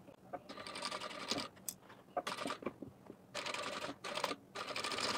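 Lockstitch sewing machine stitching a seam through leather and fabric lining in about five short runs, stopping and starting between them, each run a fast even clatter of needle strokes.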